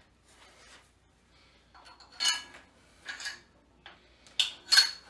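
Metal cable-machine hardware being handled: about four sharp metallic clinks, the loudest two near the end, each with a brief ring.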